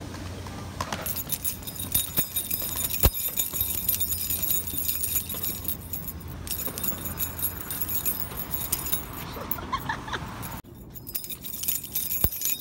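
A bunch of metal keys on a carabiner jangling as they are shaken, a dense run of irregular high-pitched clinks.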